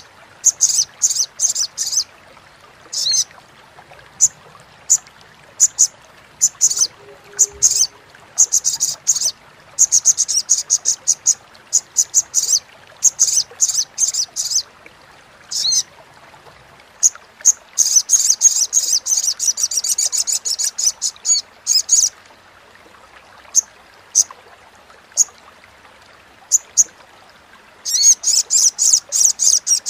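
Olive-backed sunbird (sogok ontong) giving its rapid, high-pitched chattering call in runs of one to a few seconds, separated by short pauses, with the longest and densest run a little past the middle.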